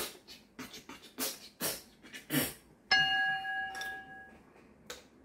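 A man's breathy laughter in short bursts, several a second, then about three seconds in a bright electronic chime of several ringing tones sounds once and fades over about a second and a half: a live-stream donation alert.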